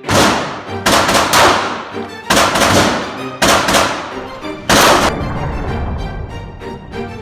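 About six gunshots, sharp and loud, each trailing off over most of a second, with two close together about a second in; background music plays under them throughout.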